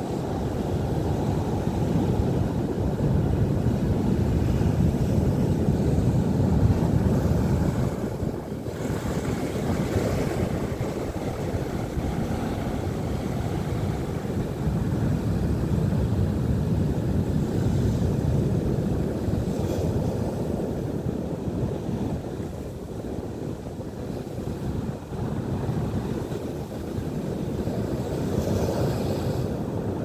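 Heavy Atlantic surf breaking over rocks at high tide: a deep, continuous rush of water that swells and eases with the sets of waves, loudest in the first third and again around the middle.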